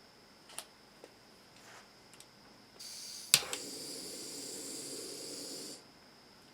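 Small gas jewellery soldering torch: gas hisses as the valve opens, a sharp igniter click lights it about half a second later, and the flame burns with a steady rushing hiss for a couple of seconds before being shut off abruptly. A few light taps of tools on the bench come before it.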